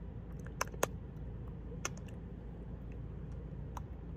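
Steady low hum inside a car cabin, with a few faint sharp clicks: two close together just under a second in, and single ones near two and near four seconds.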